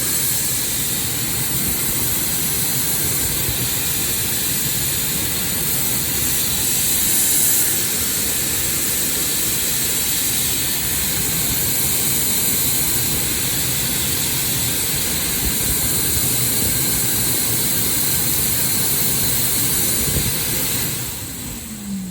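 TOTO Clean Dry TYC411WR high-speed hand dryer blowing a steady, loud rush of air, cutting off near the end.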